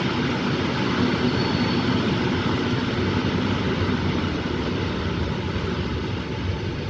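Steady rumble and hiss of a moving passenger train, the old sleeping car's wheels rolling on the rails, heard from its open window.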